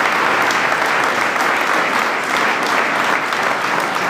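A large crowd of people applauding, steady, sustained clapping.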